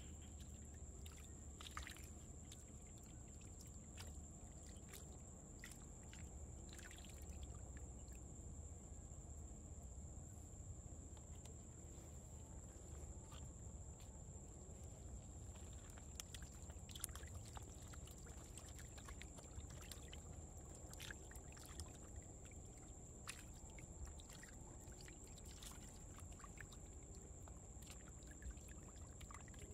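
Faint trickling of water pouring through plastic pipes into a shallow mud-walled pool, with scattered small ticks and splashes. A steady high whine sits above it.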